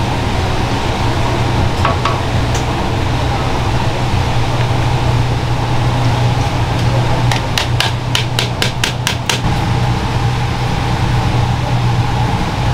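Steady low hum of a street-food stall's cooking area. A little past halfway comes a quick run of about ten sharp metal taps, some five a second.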